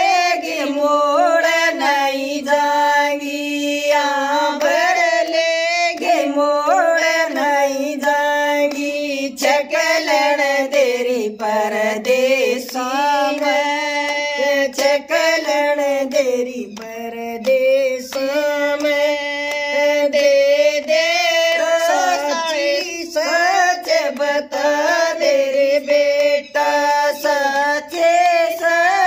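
Women singing a Haryanvi folk song together in one continuous melody line, with long held and bending notes, without instruments.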